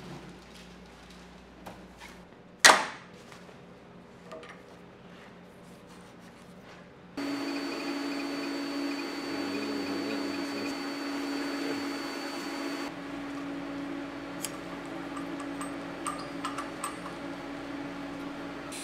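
A single sharp knock, then about a third of the way in an HTP Invertig 221 TIG welder powered on and humming steadily with a thin high whine, its cooling fan running. The whine drops out about two-thirds of the way through, leaving the hum, with a few small clicks near the end.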